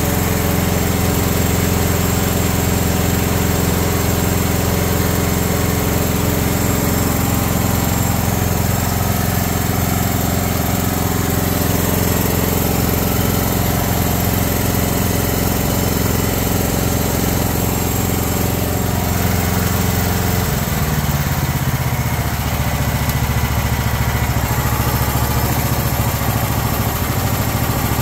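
Briggs & Stratton 13.5 XR small petrol engine of a mini excavator running steadily, then dropping abruptly to a lower speed about twenty seconds in.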